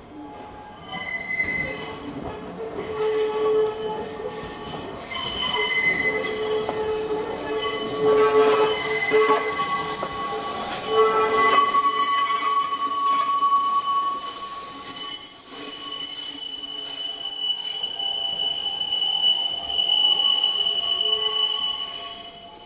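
Steel wheels of a Hanshin Railway electric train squealing against the rails as it runs past, with several shrill overlapping tones over the rumble of the train. The sound grows louder over the first several seconds, then holds steady until it cuts off suddenly.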